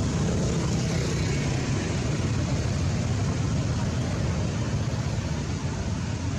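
Steady low rumble of motor traffic, unbroken throughout.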